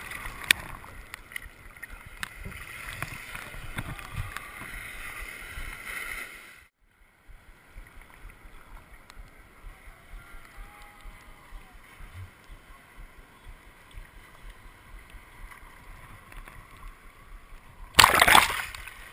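Sea water sloshing and lapping right at a camera held at the surface, with a short drop-out about a third of the way in. Near the end a small wave breaks over the camera in a sudden loud rush of water.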